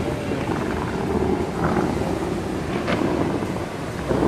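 Steady rushing noise of the Bellagio fountain's water jets spraying and falling back, mixed with wind buffeting the microphone, with a louder surge near the end.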